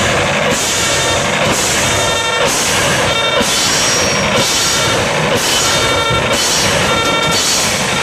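Loud live band music with drums, dense throughout: a wash of noise alternates about once a second with a held chord in a repeating loop.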